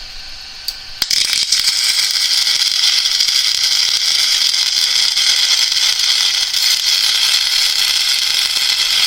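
Welding arc crackling steadily on steel, starting abruptly about a second in.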